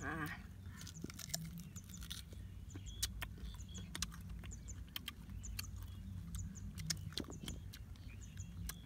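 Chewing crunchy sour fruit with chili salt: irregular sharp crunching clicks over a steady low hum, with faint high chirps like small birds.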